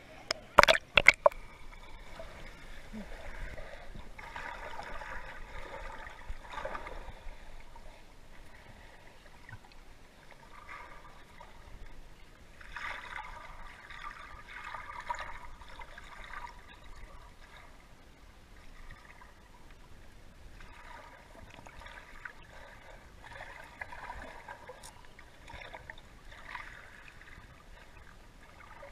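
Water heard from under the surface by a submerged camera: a muffled gurgling wash that swells and fades in waves. A few sharp knocks come about a second in as the camera goes under.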